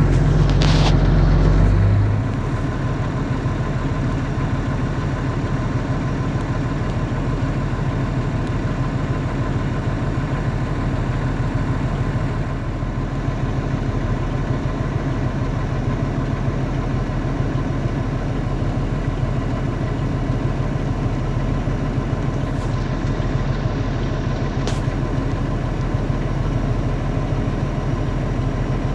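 Heavy farm machinery engine running steadily, with a louder, deeper rumble that eases off about two seconds in.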